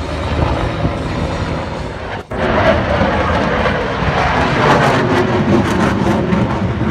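Loud, steady noise of an aircraft's engines in flight. It breaks off for an instant about two seconds in, then comes back louder.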